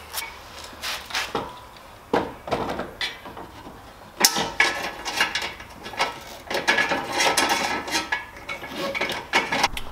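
Nissan 350Z's aluminium front crash bar being refitted: scattered metallic clanks and knocks as the bar is handled against the car, some with a short ring, and tool clicks as its bolts are tightened by hand, thicker from about four seconds in.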